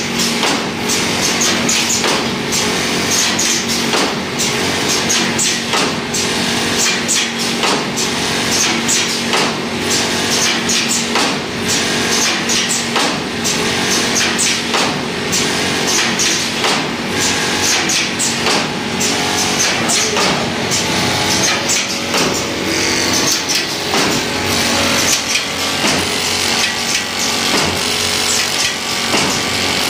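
Semi-automatic stitching machine for woven PP bags running at work: a steady motor hum under continuous fast mechanical clatter, with frequent sharp clacks as the machine stitches bags and throws them onto the stack.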